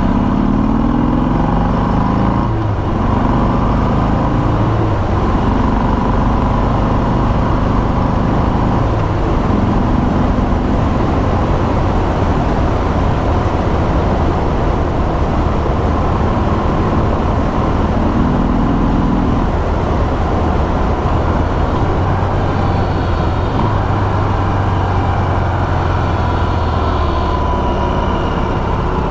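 Stock Harley-Davidson Sport Glide's 107 Milwaukee-Eight V-twin running on the move through its stock exhaust, a quiet, low rumble heard from the rider's seat. The engine note rises in the first couple of seconds as it pulls away, then holds and shifts in steps, over a steady rush of noise.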